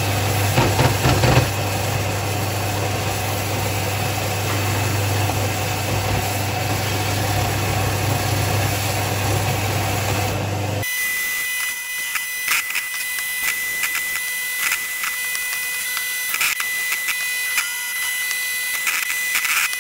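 Bench belt-and-disc sander running as a cherry log is sanded against it: a steady motor hum under the rasp of wood on the abrasive. About halfway in the low hum drops away abruptly, leaving a high steady whine with irregular scraping.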